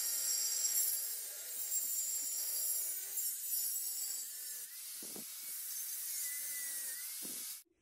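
Angle grinder cutting through the steel wall of an old propane tank: a steady high hiss of the disc on metal with a faint motor whine that wavers as the load changes. It stops abruptly shortly before the end.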